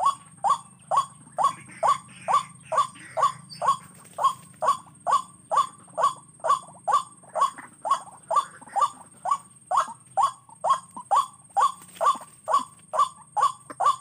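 White-breasted waterhen (ruak-ruak) call used as a trapping lure: a short downward-sliding 'kwak' note repeated evenly about two and a half times a second, with a faint steady high hiss underneath.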